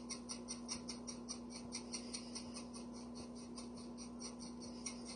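Black pepper being dispensed over raw chicken from its container: a quick, even run of light crisp ticks, about seven a second, thinning out toward the end, over a faint steady hum.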